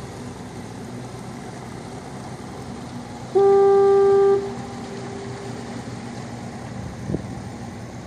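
Harbor foghorn sounding one steady blast of about a second, its echo trailing off for another second or so, over a steady low background rumble.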